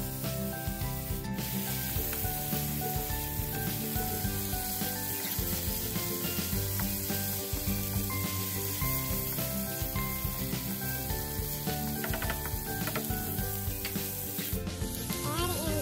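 Ingredients sizzling in hot oil in a pan as they are stirred with a wooden spatula, with background music over it.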